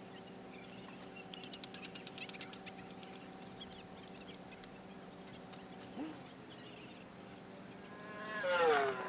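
Pit-stop work on a race truck: a quick run of sharp metallic clicks about a second in, with a few more scattered after, over a steady mechanical hum. Near the end a louder whine falls in pitch.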